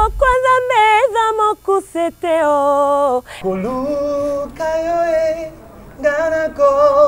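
Gospel singing in short phrases, with a woman's voice first, and with long held notes about three seconds in and again near five seconds. There is no backing music under the voices.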